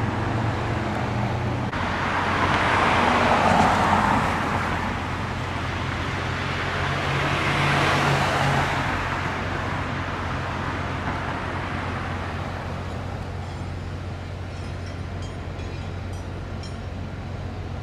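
Road traffic: two vehicles pass, one about three seconds in and another about eight seconds in, over a steady low engine hum.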